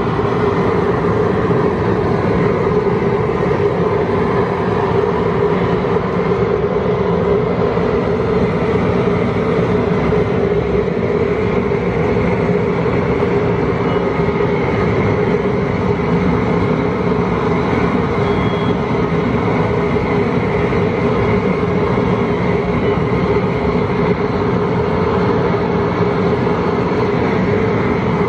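Gas cooker burner running with a steady, loud rushing roar under a large pot at a rolling boil for a shrimp boil.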